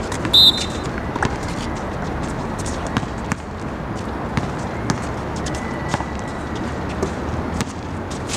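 Basketball bouncing on an outdoor hard court, as scattered short thuds over steady background noise. A brief sharp high squeak about half a second in is the loudest sound.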